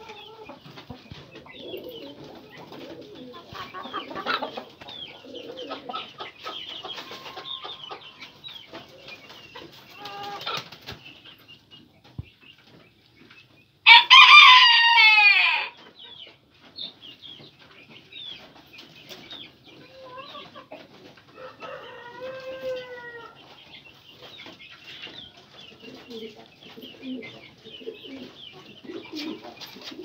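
Chickens clucking, with a rooster crowing once, loud and about two seconds long, midway through. Pigeons coo softly near the end.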